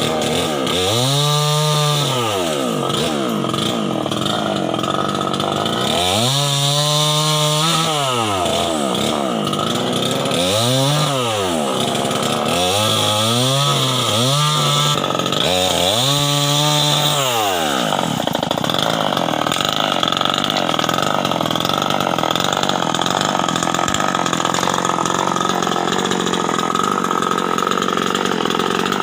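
Stihl 070 two-stroke chainsaw revving up and back down about five times in quick succession. It then holds at steady high revs from a little past halfway.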